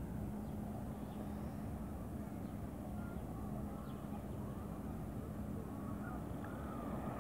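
Steady outdoor rumble with a constant low hum, and a few faint bird chirps now and then.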